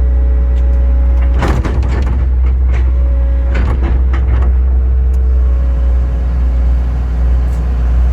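Kobelco excavator's diesel engine running steadily, with a hydraulic whine that shifts pitch a few times as the hydraulics are worked, and several clanks in the first half.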